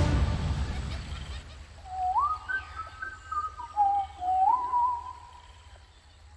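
Trailer music dies away, then a few clear whistled calls that slide up in pitch and waver, over a faint, even high ticking.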